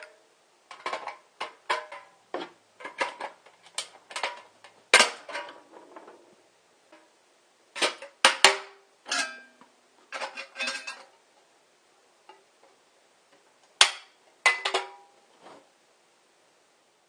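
Pliers bending and prying a cut section out of a thin steel food can's wall: irregular clinks and clanks of sheet steel, some ringing briefly, in three bursts with pauses between.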